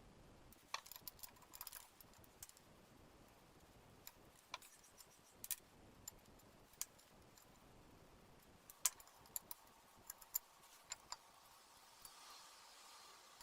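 Scattered sharp metallic clicks and clinks from handling the parts of a 1920s Marelli table fan being restored: a quick run of them at the start, single taps through the middle, then another run, the loudest about nine seconds in. Between them it is nearly silent.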